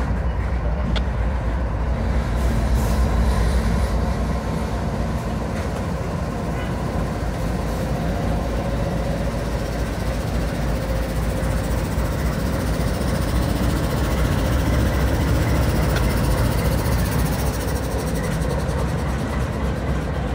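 Diesel freight train moving along the track: a steady, loud low rumble of locomotive and rolling railcars.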